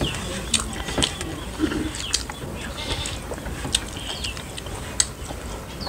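Close-up eating sounds of two people eating rice and curry by hand from brass plates: chewing and mouth clicks, with fingers working the food on the plates. A short, high, falling call repeats about every two seconds.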